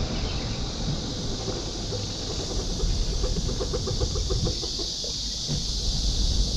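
Low wind and motion rumble of a scooter ride under a steady high insect drone. Midway, a quick even run of short repeated calls comes through, about seven a second for roughly two seconds.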